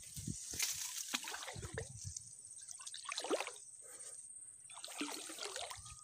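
Pond water sloshing and trickling in uneven splashes, with a few dull low thumps, as someone moves through the water. A faint steady high whine sounds throughout.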